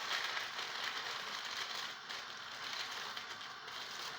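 Pot of water boiling with ramen noodles in it: a steady bubbling hiss that eases slightly about two seconds in.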